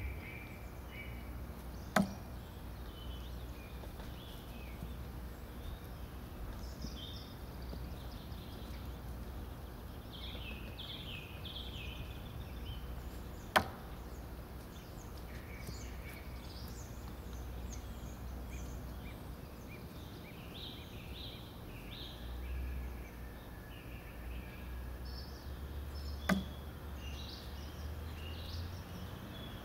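Thrown knives striking the target three times, each a single sharp thunk, about twelve seconds apart. Small birds chirp throughout.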